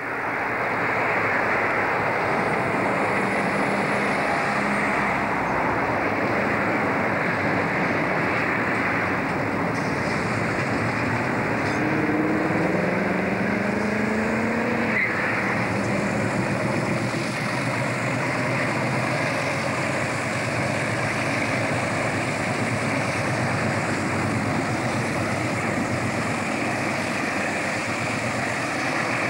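Three ALCo 44 class diesel-electric locomotives hauling a container train past at close range: a loud, steady din of engines and wheels, with a rising pitched note for a few seconds near the middle.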